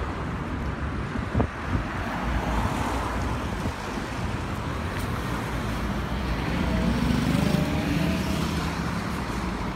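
Road traffic going round a roundabout: a steady hum of passing cars, with a lorry's heavier engine rumble swelling as it passes close about seven seconds in. A brief knock about a second and a half in.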